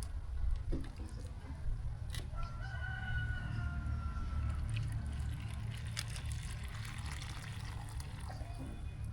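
A rooster crowing once, a long drawn-out call of about two seconds starting a couple of seconds in, falling slightly in pitch, over a steady low rumble.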